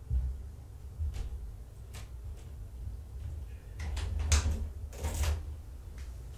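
A door being unlatched and opened: a few scattered clicks, then a cluster of clicks and short swishes about four to five seconds in, over a steady low hum.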